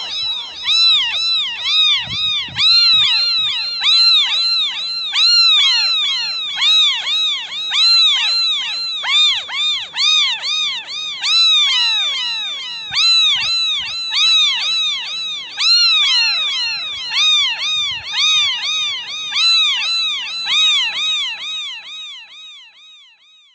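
Kittens mewing continuously: high, thin mews that each rise and fall in pitch, several at once and overlapping in a rapid stream. The mewing fades out over the last few seconds.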